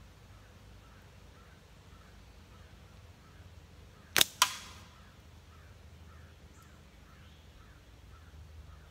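A single picklefork slingshot shot about four seconds in: a sharp snap of the bands on release, then a quarter second later a second sharp crack with a brief ring as the ammo strikes a metal can.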